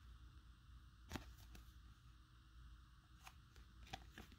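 Near silence with a few faint clicks and rustles of a trading card and clear plastic card sleeve being handled: one about a second in, a few more near the end.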